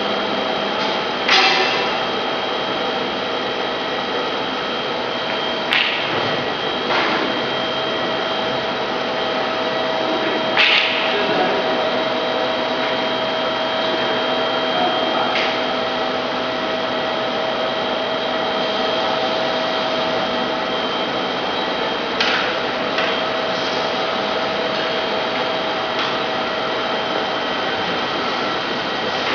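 Steady machinery hum with a constant whine. A handful of short, sharp clicks and knocks come and go as the stamping-foil roll and the metal rollers are handled.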